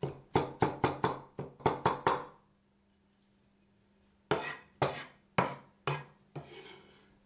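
Cleaver chopping garlic on a wooden cutting board: a quick run of about nine knocks, a pause of about two seconds, then five more slower chops.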